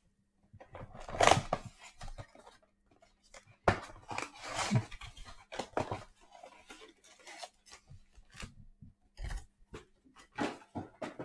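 Cardboard trading-card box being opened by hand and its wrapped card packs pulled out and handled: irregular crinkling and rustling, with a few sharper knocks as packs and box are set down.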